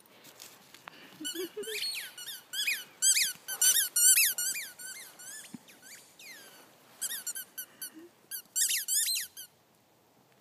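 Squeaky dog-toy ball being chewed, squeaking in quick runs of short high-pitched squeaks, with a lull partway through.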